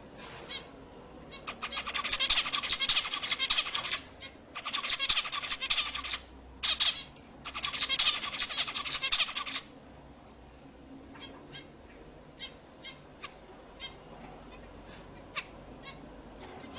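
Zebra finches calling: four dense spells of rapid, overlapping high-pitched chatter between about a second and a half and ten seconds in, then only scattered single calls.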